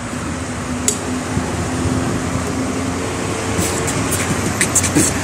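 Street traffic noise: a steady rumble of passing vehicles, with an engine hum that holds one pitch for a couple of seconds and a few light clicks near the end.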